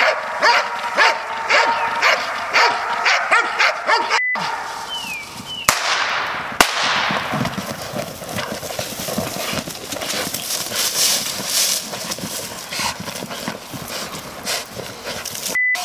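Belgian Malinois protection dogs barking rapidly for the first few seconds, then, after a couple of sharp knocks, a steady noisy scuffle as the two dogs bite and pull at a decoy in a bite suit, paws churning the dirt.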